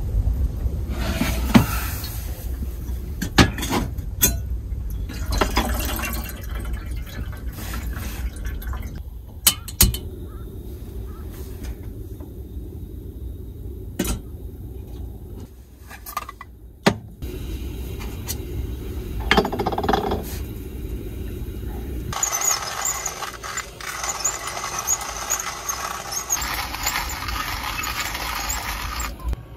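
Cups and cookware being handled at a camp table: scattered clinks and knocks over a low rumble, then a steady rushing hiss for the last several seconds.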